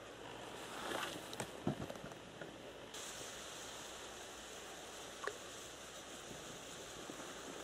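Quiet lakeside ambience: a steady soft hiss, with a few faint clicks and knocks about a second in and a light plop a little past five seconds as the float and baited hook land in the water.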